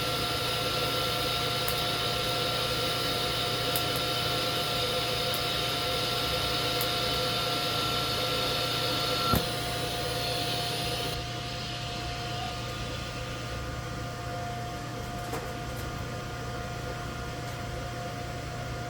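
Everlast TIG 185 inverter welder running at a 120-amp setting, a steady hiss over several whining tones. The hiss stops with a click about nine seconds in, leaving the machine's quieter steady hum and whine.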